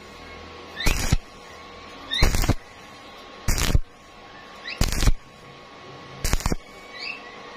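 Stick-welding arc on steel pipe crackling in short bursts about every one and a half seconds, five times: the arc is struck and broken in a steady on-off rhythm, with a faint hiss between bursts.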